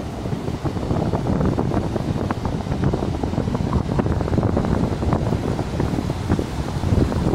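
Wind buffeting the microphone, steady and mostly low, over waves breaking on a sea beach.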